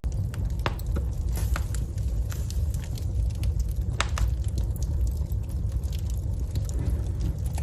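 Wood fire crackling in a fireplace: irregular sharp pops and snaps over a steady low rumble of burning, with one louder pop about four seconds in.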